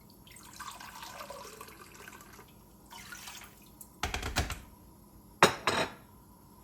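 Water being poured into a cooking pot for the broth, running for about two seconds. Then two loud metallic clanks, about four and five and a half seconds in.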